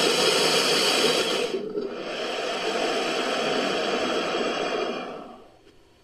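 Crocodilian-style black caiman sound effect: a long breathy hiss that breaks off about one and a half seconds in, then a second long hiss that fades away about five seconds in.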